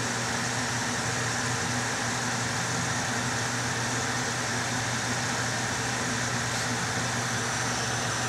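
Steady hum and rush of air from a small blower fan running at an even speed, with a few steady low tones under it.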